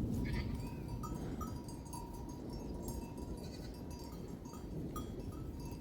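A flock of sheep and goats with scattered short bleats and the light clinking of their bells, over a steady low rushing rumble.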